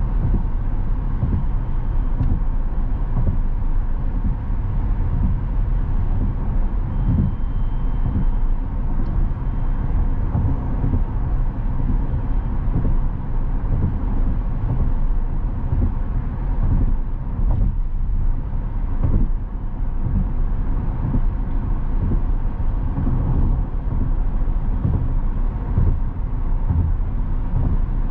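Steady low road rumble of a car driving, with no engine note and no clear changes.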